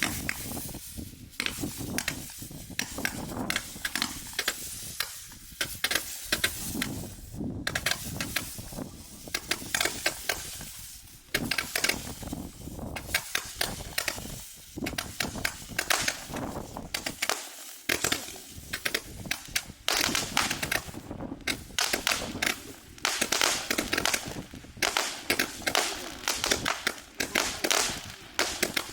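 A 168-shot mini gatling gun firework cake firing: rapid, continuous crackling pops in quick succession, with brief lulls a few times and denser volleys toward the end.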